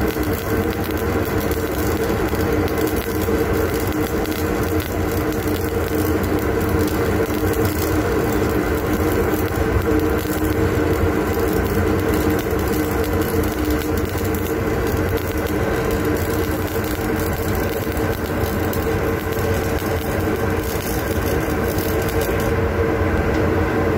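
Stick (shielded metal arc) welding arc crackling steadily without a break, over a constant machine hum.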